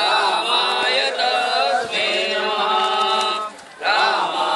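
Male voices chanting a devotional chant in long, held phrases, with a brief break about three and a half seconds in before the next phrase starts.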